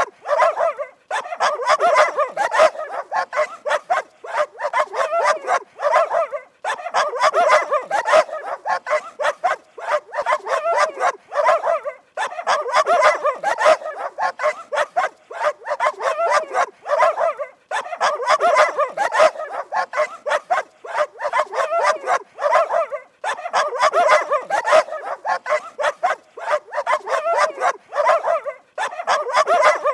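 Dog barking rapidly and continuously, in runs of about five seconds separated by brief pauses that recur at even spacing.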